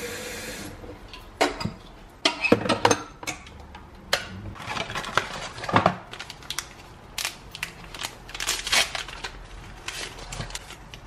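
Kitchen faucet water running into an electric kettle, shutting off under a second in. Then a string of sharp clicks, knocks and paper crinkling as paper tea bag packets are handled and opened and the kettle is moved on the counter.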